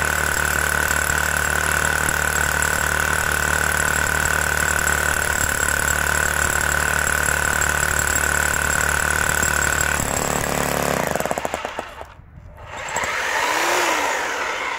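Parkside Performance PPBH 1600 A1 corded 25-joule SDS-Max hammer drill hammer-drilling into granite at its highest setting: rapid, steady hammering with a constant motor whine. It stops about ten seconds in, followed by a brief separate noise near the end.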